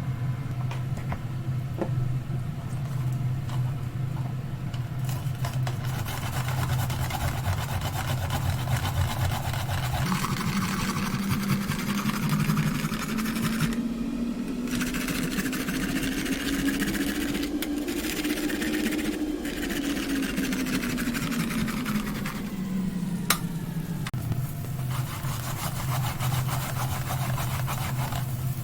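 A small electric motor humming steadily, with a second motor tone that slowly rises in pitch from about a third of the way in and falls back again a few seconds before the end.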